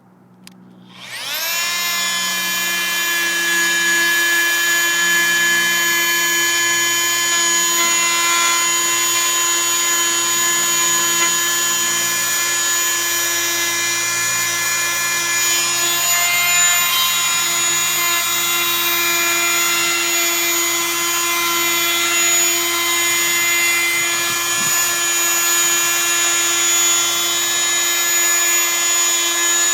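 Fein oscillating multi-tool with a triangular corner sanding pad starting about a second in, spinning up and then running at a steady high whine while it sands along the edge of the floor.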